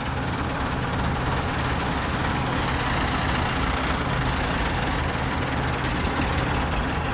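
Heavy diesel engine running steadily at low speed, a low even drone.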